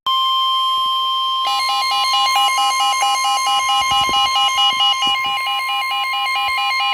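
NOAA Weather Radio warning alarm tone: a steady, loud single high tone at 1050 Hz, the signal that a warning message follows. About a second and a half in, a second alarm joins it over the top, a fast beep that flips back and forth between pitches.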